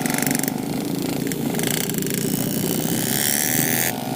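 Yamaha RX King 135's two-stroke single-cylinder engine and exhaust running steadily under the rider at low speed in slow traffic.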